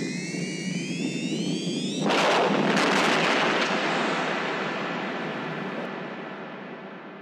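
Closing sound design of an electronic track: a rising pitched sweep breaks off about two seconds in into a sudden loud crash of noise, like a thunderclap, which then fades out slowly.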